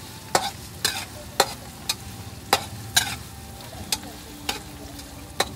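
Chopped onion and garlic sizzling in oil in a steel wok while a metal spatula stirs them, clacking against the wok about twice a second.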